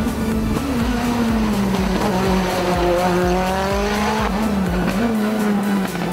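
Lancia Delta Evo hill-climb car's engine pulling out of a hairpin. The revs climb for about two seconds, drop sharply about four seconds in, then climb again, with music underneath.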